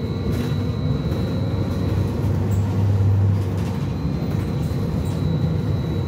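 Interior of a moving BKM 43300D trolleybus: steady running rumble with a low hum that swells in the middle and eases off, and a thin high whine throughout.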